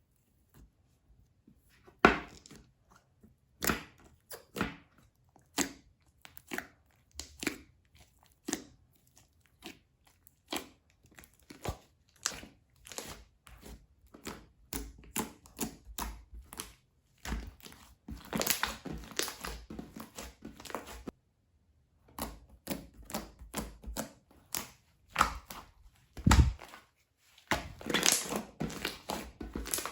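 Hands squishing, poking and stretching slime, making sticky clicks and pops about once a second, with denser crackling stretches in the middle and near the end.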